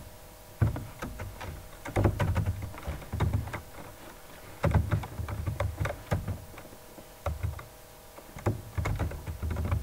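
Typing on a computer keyboard: irregular clusters of key clicks with dull thumps, over a faint steady hum.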